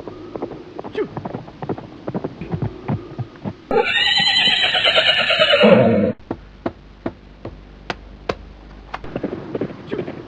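Horse hoofbeats knocking unevenly, then about four seconds in a horse neighs loudly for about two seconds, the call falling in pitch and cutting off abruptly; a few single hoof strikes follow.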